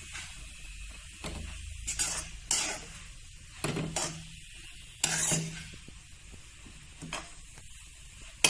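Metal spoon stirring and scraping a leafy vegetable stir-fry around a metal kadai, in irregular strokes every second or so over a faint steady sizzle. A sharp clank of spoon on pan near the end is the loudest sound.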